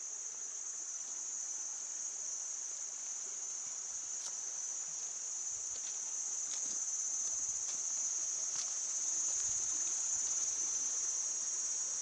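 Steady, high-pitched shrilling of an insect chorus, a little louder in the second half, with a few faint ticks.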